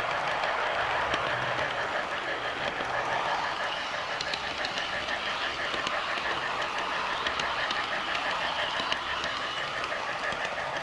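Miniature garden-railway train running along its track, heard from on board: a steady running noise with a fast, even ticking.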